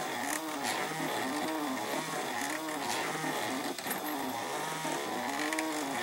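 3D printer's stepper motors whining as the print head moves, the pitch rising and falling with each move, one to two times a second.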